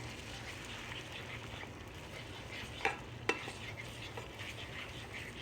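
Scrambled eggs sizzling in a frying pan as they are stirred, with a steady hiss throughout. Two sharp clicks, a utensil knocking the pan, come close together about three seconds in.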